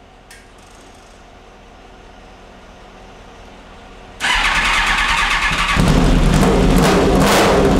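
Suzuki GSX-R1000 inline-four motorcycle engine in a lawn mower chassis on its first start. After a few seconds of faint hum it starts suddenly about four seconds in and runs, growing louder and fuller from about six seconds.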